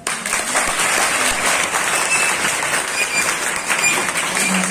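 An audience of students clapping: dense, steady applause that comes in all at once.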